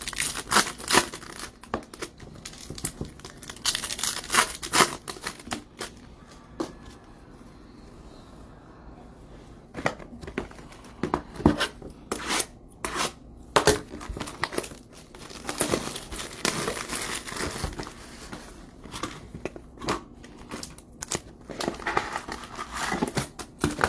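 Packaging torn and crinkled by hand in irregular bouts, with a quieter stretch about a quarter of the way through.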